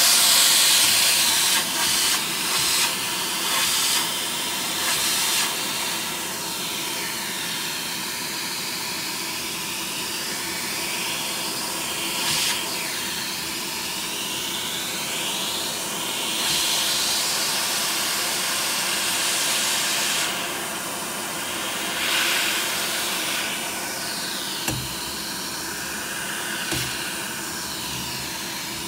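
Vacuum cleaner running steadily with an airy hiss that swells louder several times and shifts in tone as the suction changes. There are a couple of soft low bumps near the end.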